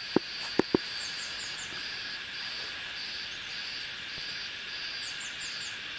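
Insects droning steadily in the bush, one of them buzzing in a pulse about twice a second, with two short runs of four quick, falling high chirps. A few sharp clicks sound in the first second.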